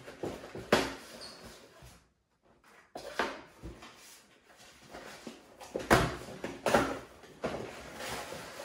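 Cardboard packaging being handled: inner boxes scraping and rustling as they slide out of a printed outer carton, with several knocks as boxes are set down on a wooden table. A brief silent gap about two seconds in.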